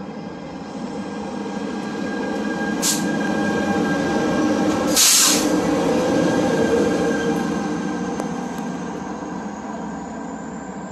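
A train passing close by, growing louder to a peak about halfway through and then fading, with a set of steady tones throughout and two sharp clacks about three and five seconds in.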